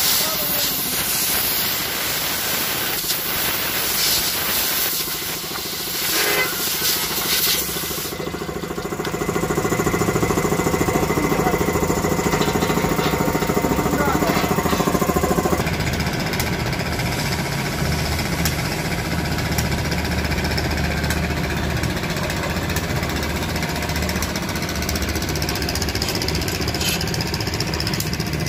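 Compressed air hissing loudly from an air-gun nozzle as it blows the dust out of a truck's air-filter element, in short bursts for the first eight seconds or so. After that a steady low machine hum runs on.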